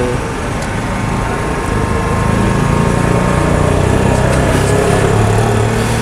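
An engine running steadily with a low hum that grows louder about two seconds in, over street noise.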